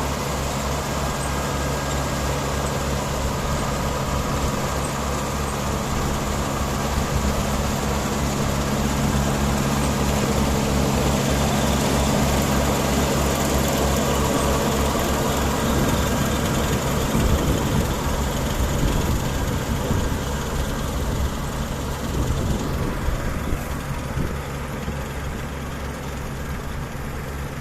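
Daedong DSC 62G half-feed combine harvester running steadily while cutting paddy rice: a diesel engine drone under a broad hiss from the cutting and threshing gear. About five seconds before the end, the higher hiss drops away.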